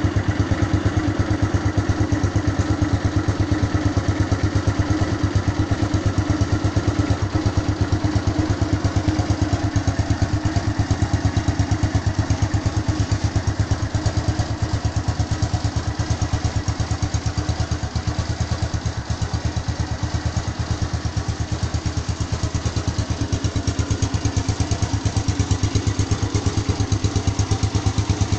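Honda Phantom motorcycle engine idling steadily while warming up, with an even, rapid firing beat that neither rises nor falls.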